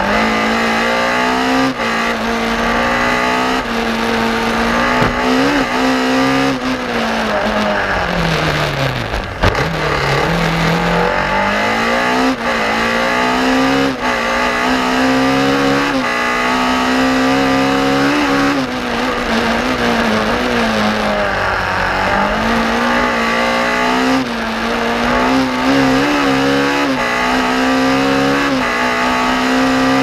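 BMW M3 E30 rally car's four-cylinder engine heard from inside the cabin, running hard at high revs with quick gear changes. It falls steeply as the car slows about seven to nine seconds in, picks up again, and dips once more around twenty seconds in before pulling back up.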